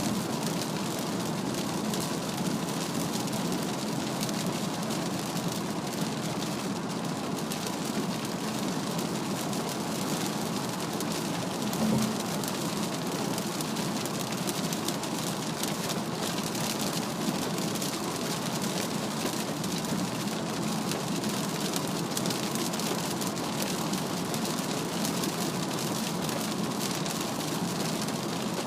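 Heavy rain on a Mazda CX-3 driving at highway speed, heard from inside the cabin: a steady wash of rain on the body and glass over tyre and road noise. A single short knock comes about twelve seconds in.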